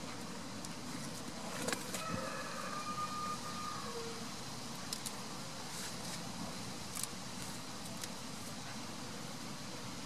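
A steady engine drone, with a few faint clicks over it.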